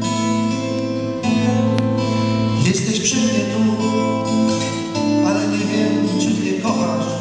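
Acoustic guitar strumming and picking chords as a ballad accompaniment, with a few harder strums in the second half.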